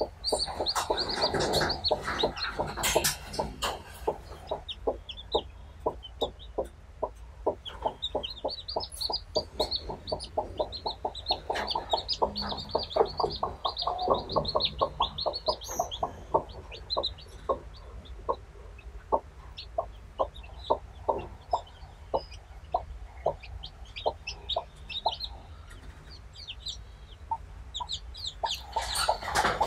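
Broody hen clucking steadily and softly to her chicks, about two or three short low clucks a second. Newly hatched chicks peep in short runs of high, falling notes over it, with a louder burst of sound near the end.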